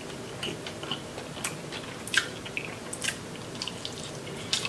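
Close-miked wet chewing and lip smacking while eating sauce-covered boiled crawfish, with scattered sharp smacks and clicks, the loudest about two seconds in and near the end.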